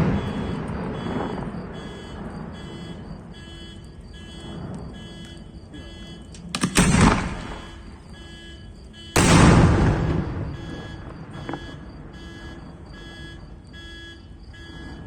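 Firework shells going off: a crackling bang about seven seconds in and a louder sudden boom about nine seconds in that rumbles away over a couple of seconds. Under them an electronic alarm beeps steadily, about twice a second.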